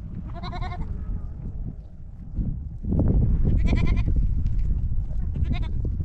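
Goats bleating three times, each a short wavering call. Under the bleats is a low rumbling noise that grows louder about three seconds in.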